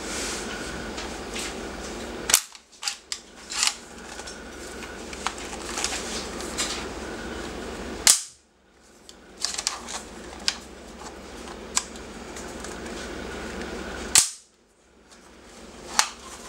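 Airsoft L85A1 blowback electric gun (AEG) firing three single shots about six seconds apart, each a sharp crack, with lighter clicks in between.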